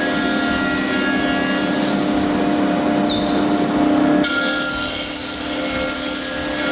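SCM Minimax Lab 300P woodworking combination machine running under load, a steady machine hum and hiss as wood is fed through; the sound shifts abruptly about four seconds in.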